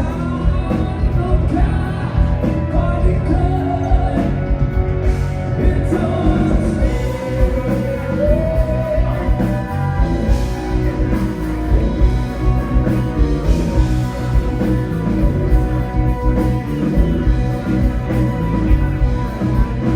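Live bar band playing amplified rock music with a singer, over a steady beat.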